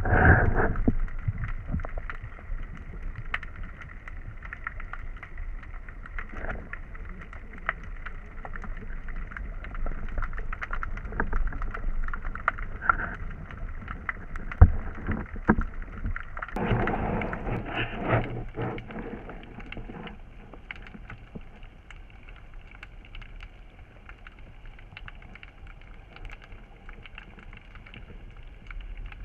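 Underwater sound picked up by a camera in a waterproof housing as a diver swims: muffled water noise with a steady low rush and scattered small clicks, swelling louder for a couple of seconds past the midpoint.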